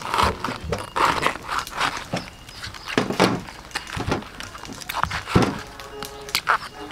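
Banana flower bracts being peeled back and torn off by hand: irregular crackling, rustling tears and a few knocks against a wooden chopping board.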